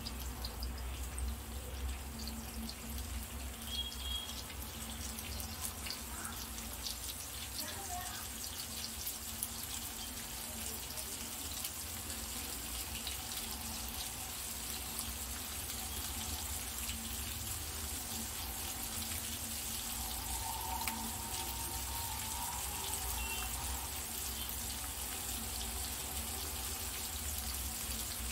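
Rohu fish steaks shallow-frying in oil in a nonstick pan, sizzling steadily with a fine crackle. A steady low hum runs underneath.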